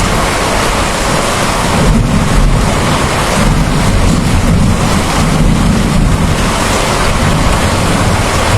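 Heavy, steady rain with low rumbling thunder that swells about two seconds in and again a few seconds later.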